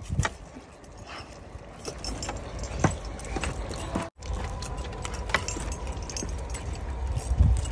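Metal bracelets and rings clinking in scattered light ticks as bare hands tear apart goat meat and rice on a metal platter, over a low background rumble.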